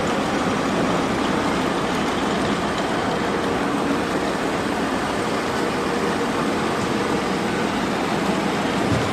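Manual milling machine running steadily, its cutter machining brass.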